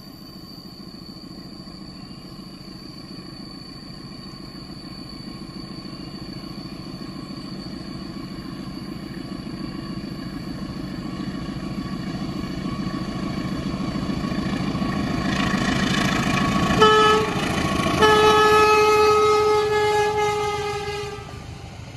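A CC 204-class diesel-electric locomotive hauling a passenger train approaches, its engine and wheels on the rails growing steadily louder. Then its multi-tone horn gives a short blast about seventeen seconds in, followed straight away by a longer blast of about three seconds.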